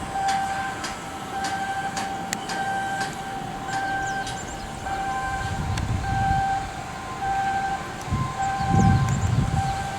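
Electronic warning beeper sounding a steady repeating tone about once a second, now and then alternating with a slightly higher tone. Sharp metallic clanks and knocks sound throughout, and a low rumble swells in the second half.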